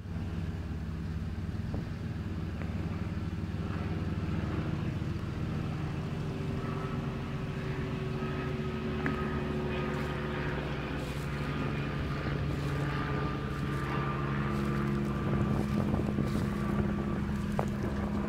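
1953 Chevrolet pickup truck's engine idling steadily, a little louder near the end.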